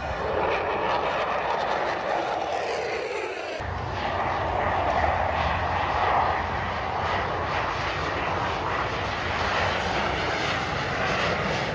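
Airplane engine noise from a plane flying by at an air show: a steady, loud rushing. The deep rumble drops away briefly and cuts back in suddenly about three and a half seconds in.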